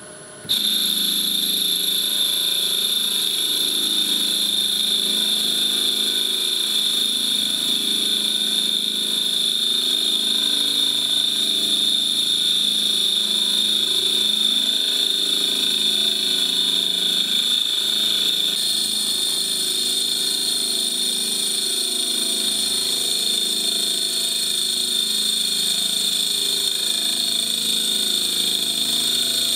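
CNC mill's rotary-axis spindle turning burl-wood ring stock while a boring bar bores out the ring's inner diameter, the spindle at up to 1600 rpm. A steady high-pitched machine whine whose upper tones shift slightly about two-thirds of the way through.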